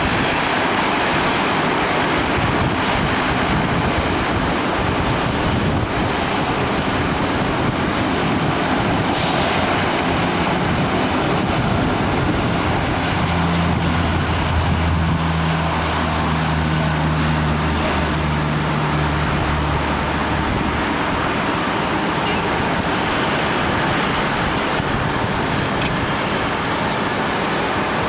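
Steady rushing noise of heavy rain and distant jet aircraft at an airport, with a low engine drone rising out of it for several seconds around the middle.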